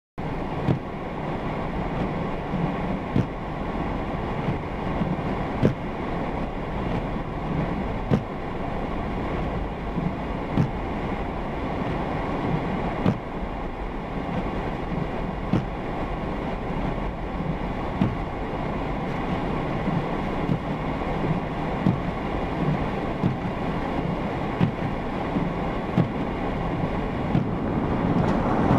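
Steady low rumble of a moving vehicle, starting abruptly, with a faint knock repeating about every two and a half seconds.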